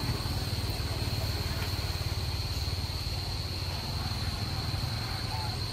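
Outdoor tree-canopy ambience: a steady low rumble under a constant high-pitched insect drone, with a few faint chirps.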